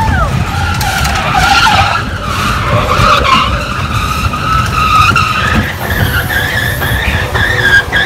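Roller coaster train running on its steel track: a steady low rumble with high, wavering wheel squeal as it takes the curves.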